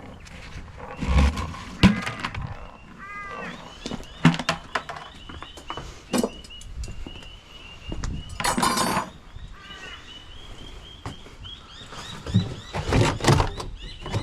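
Scattered knocks and clatters of metal fridge parts being handled as a refrigerator is pulled apart, with a short rasping burst a little past eight seconds in. Birds chirp repeatedly in the background.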